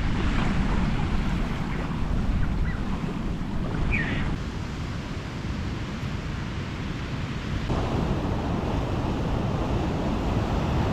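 Ocean surf washing on the shore, with wind buffeting the microphone. A short high chirp comes about four seconds in, and the noise grows fuller a little before eight seconds.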